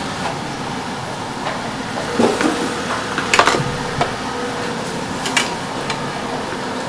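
Steady background noise of a workroom with a few light clatters and knocks as a knife is set down and a metal spatula and plastic tub are handled, the loudest knocks a little past the middle.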